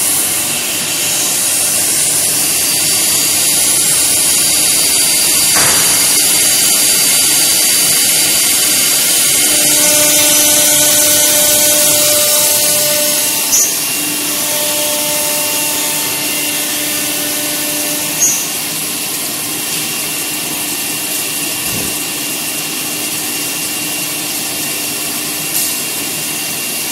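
TJ1325 CNC router's 4.5 kW air-cooled spindle running at high speed over a wood door panel: a loud, steady high-pitched whine and hiss. A lower steady hum joins for several seconds in the middle, and there are a few brief clicks.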